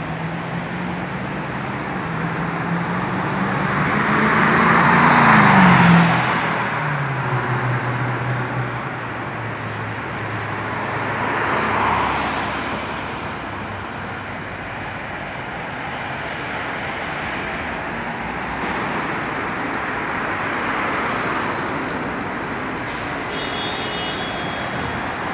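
Road traffic hiss with vehicles passing close by. The loudest pass comes about five to six seconds in, its engine note rising and then falling away, and a second car passes about twelve seconds in. A faint high-pitched squeal comes near the end.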